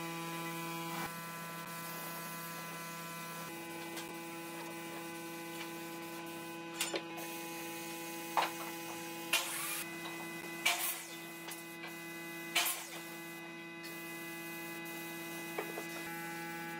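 A steady electrical hum with several tones, broken by a handful of short sharp knocks and taps about halfway through.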